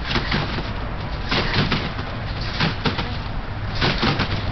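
Backyard trampoline springs squeaking and the mat creaking with each bounce, four bounces a little over a second apart, over a steady low rumble.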